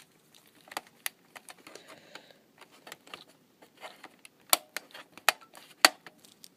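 Irregular sharp clicks and taps of small hard plastic and metal parts being handled on a laptop, with three louder clicks in the second half.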